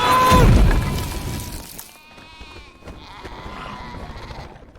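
A loud crash with a deep boom in the first second, dying away, then sheep bleating.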